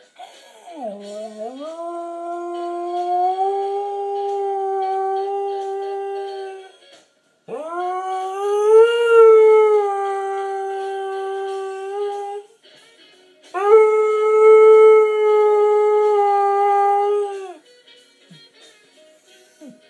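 Basenji yodeling along to music in three long, held howls with short breaks between. The first starts low and slides up before holding steady, and the second swells to a peak and then settles.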